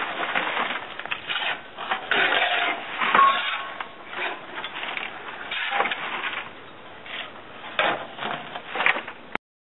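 Shovels scraping and scooping woodchip mulch off a truck tray into a wheelbarrow, a run of irregular scrapes and chip rustles. The sound cuts off suddenly near the end.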